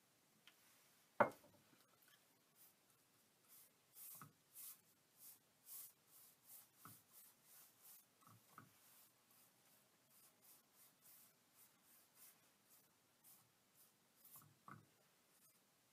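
A paintbrush spreading liquid finish over a wooden board: soft swishing strokes, about two a second, from about three and a half seconds in. About a second in, a single sharp knock.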